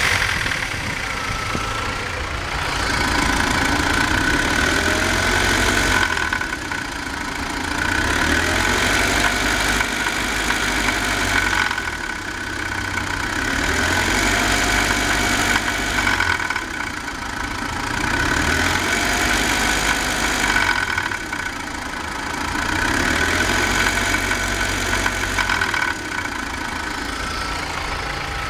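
BMW 318i petrol engine running unevenly, its sound swelling and falling again in repeated cycles of about five seconds: rough running (unrunder Motorlauf).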